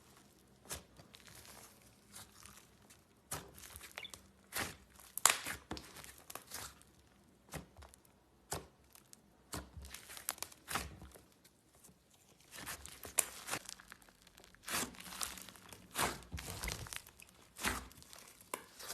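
Slime being squeezed and poked by hand, making an uneven run of sharp crackles, pops and crunches.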